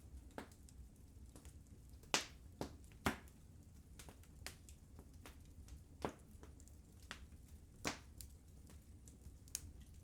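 Wood fire burning in a fireplace, crackling with irregular sharp pops, the loudest a little after two seconds, at about three seconds and near eight seconds, over a low steady rumble.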